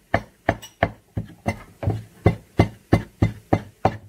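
A wooden pestle pounding crayfish and peppers in a wooden mortar: steady strokes, about three a second.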